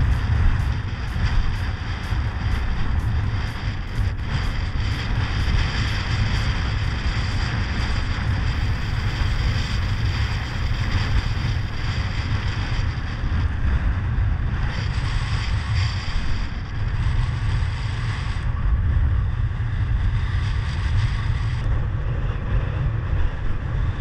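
Wind buffeting the microphone: a steady, loud low rumble. In the first eight seconds or so there is also a faint, fast, even ticking.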